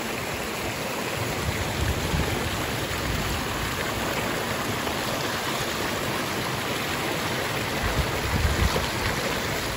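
Rocky stream rushing steadily down a narrow rock chute in a small cascade: a continuous, even splashing roar of white water.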